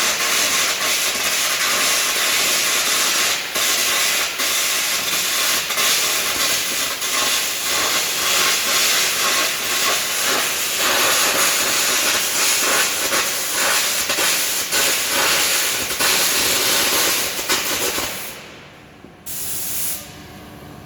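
Arc gouging: a loud, steady hiss of the compressed-air jet with a dense crackle from the arc. It cuts off about 18 seconds in, with one more short burst of hiss about a second later.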